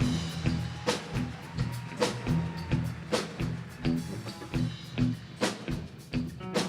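Band music without vocals: a drum kit keeps a steady beat, about one strong hit a second, over bass and guitar.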